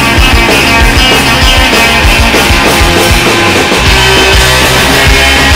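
Loud punk rock band recording from a vinyl LP: a full band mix with a steady drum beat.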